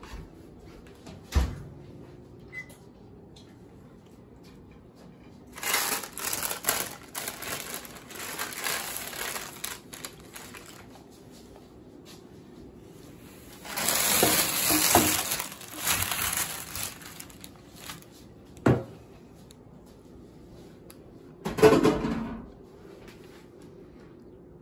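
Crinkly rustling handling noise in several bursts of one to three seconds, the longest about halfway through, with a couple of single sharp knocks between them.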